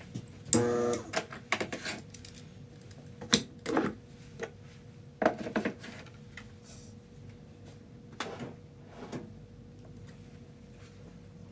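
Scattered knocks and clacks of tools and parts being handled at a cue lathe, with a brief buzz about half a second in, over a faint steady hum.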